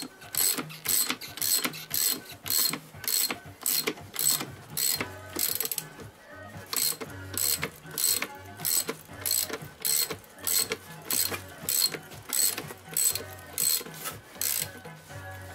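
Hand ratchet clicking in steady strokes, about two to three clicks a second, as it winds down the threaded rod of a coil-spring compressor to compress a strut's coil spring. The clicking breaks off briefly about six seconds in, then resumes.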